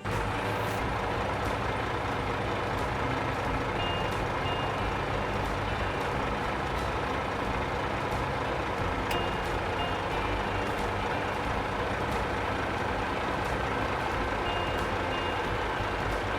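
Heavy construction vehicle's engine running steadily, with short high beeps coming in small groups about every five seconds, like a reversing alarm.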